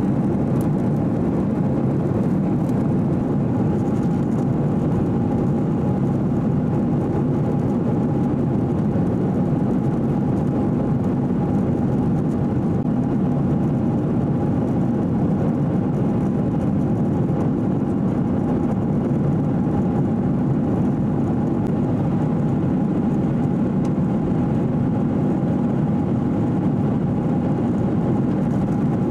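Steady cabin noise inside a Boeing 737-800 in flight: the low rush of air and its CFM56-7B turbofan engines, with a thin steady tone above the rumble.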